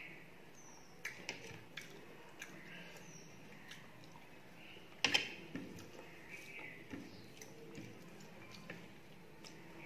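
Close mouth sounds of a person eating rice and fish curry by hand: wet smacking and chewing clicks, scattered through, with a louder cluster about five seconds in.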